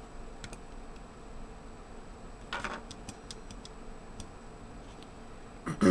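Fingers handling electrical tape on the metal shroud of a laptop fan and heat-pipe assembly: a few faint ticks and a brief rustle about two and a half seconds in, over a low steady hum.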